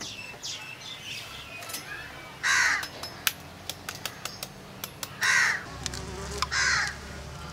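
A crow cawing three times, a few seconds apart, each caw short and falling in pitch. Between the caws come light, sharp clicks as an egg shell is tapped and cracked with a knife.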